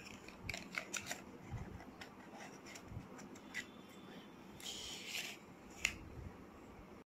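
Close-up handling noise: scattered light clicks and taps from a lip crayon and fingers, with a brief rustle about five seconds in.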